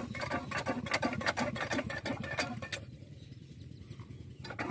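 Small diesel engine running, driving a water pump, with a rapid mechanical clatter over its steady low running note. The clatter is strongest in the first half and drops back near the end.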